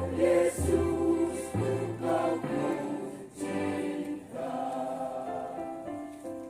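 Church choir singing a hymn in sustained chords; the sound fades near the end.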